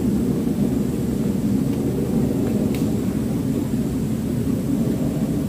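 A steady low rumble, loud and unbroken, with a faint tick near the middle.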